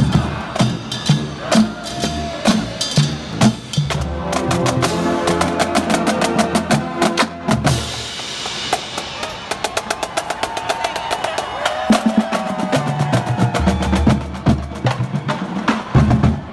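Marching band playing on the march: a drumline of snare drums, bass drums and cymbals with brass and sousaphones. A held brass chord sounds from about four to eight seconds in, followed by rapid snare strokes under the horns.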